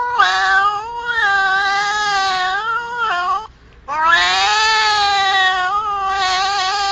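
A cat giving two long, wavering yowls with a short break between them, about three and a half seconds in. This is the drawn-out caterwaul of an angry, threatened cat.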